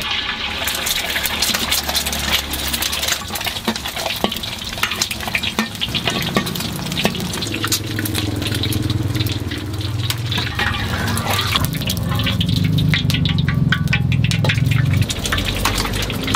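Eggs deep-frying in hot oil in a wok, crackling and spattering with many sharp pops. A low steady rumble runs underneath, stronger in the second half.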